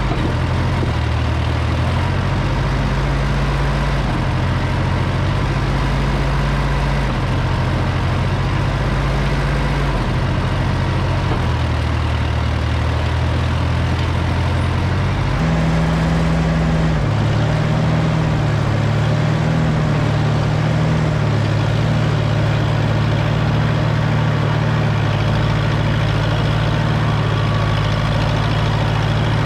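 Allis-Chalmers D17 tractor engine running loud under load, its pitch shifting up and down every couple of seconds and then settling steadier over the last part, as the stuck two-wheel-drive tractor tries to pull itself out of the snow.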